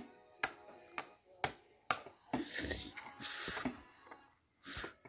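Small plastic LEGO brick figures being handled and set down on a wooden tabletop: a few sharp clicks and taps, with short hissing noises near the middle and end.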